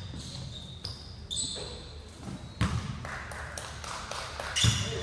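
A basketball bouncing on a hardwood gym floor a few times, sharp thuds with the two loudest a couple of seconds apart, over faint voices.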